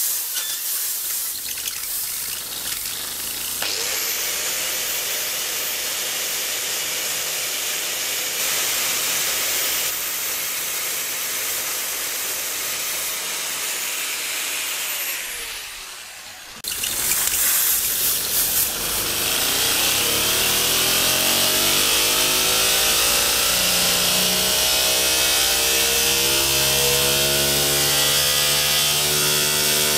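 An angle grinder with a flap disc running against a homemade Tesla turbine as it is spun by a compressed-air blowgun, to grind its discs back into balance; the grinder's steady tone falls away as it winds down about fifteen seconds in. After a sudden break, the air blast spins the turbine up again with hissing air and a whine that rises steadily in pitch.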